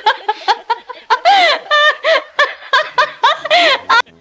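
A person laughing hard in rapid, high-pitched bursts, several a second, which cut off suddenly near the end.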